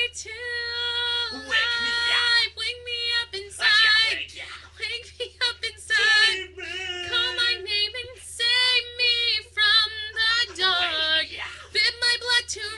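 A young female voice singing unaccompanied, holding some long notes and sliding between others, over a faint steady low hum.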